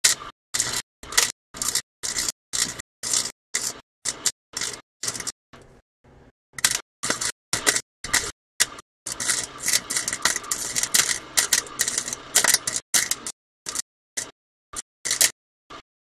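Electric arc welding on a car's exhaust pipe at the flex joint: the arc crackles in short bursts about twice a second, stitch-welding, with a longer stretch of steady crackle from about nine to thirteen seconds in.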